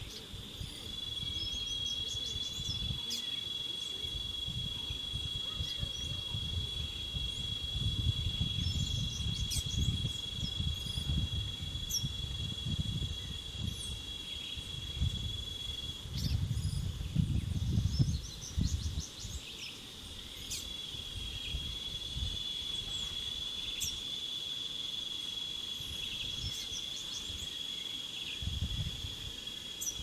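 An insect holds one steady high-pitched trill, which breaks off for a few seconds past the middle and then resumes. Short scattered bird chirps come and go over it, with a low rumble rising and falling underneath.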